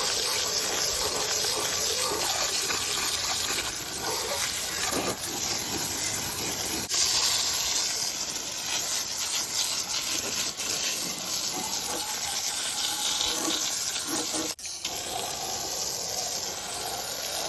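Steady hissing spray of liquid onto the ATV's engine and parts, broken once briefly near the end.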